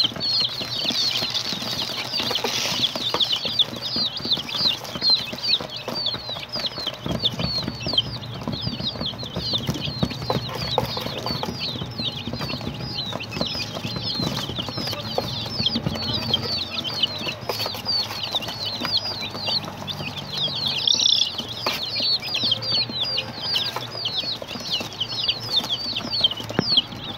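A box full of day-old chicks peeping: a dense, unbroken chorus of short, high-pitched falling peeps from many chicks at once.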